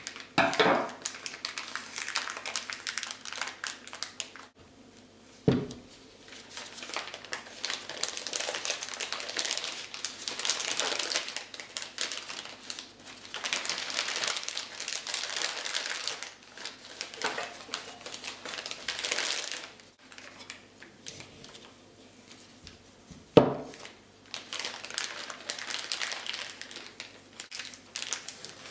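Thin plastic piping bag crinkling and rustling as it is handled, opened out and filled, in long stretches. Three sharp knocks break it: about half a second in, around five and a half seconds, and near the end.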